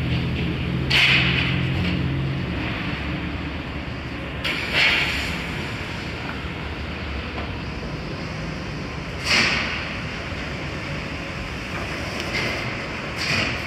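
City street traffic noise, with a heavy engine's low hum for the first two seconds and four loud, brief rushes of hiss spread through.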